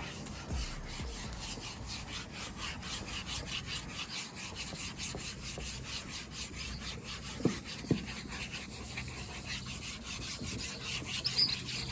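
Hand sanding a car's clear coat with 2000-grit sandpaper: quick, even back-and-forth rubbing strokes that smooth off a thin rough layer of clear. Two brief squeaks come about two-thirds of the way through.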